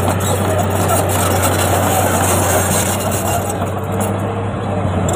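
Crawler bulldozer's diesel engine running steadily under load as the blade pushes a heap of wet soil.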